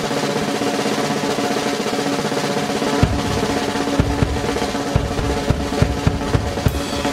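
Music built on a snare drum roll over sustained held notes, with low bass-drum beats joining from about three seconds in, the kind of drum roll that leads up to a trick.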